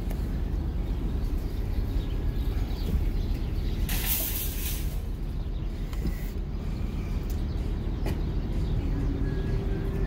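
Steady low rumble of vehicles, with a few faint bird chirps from a roosting flock in a tree. A loud hiss lasting about a second comes about four seconds in.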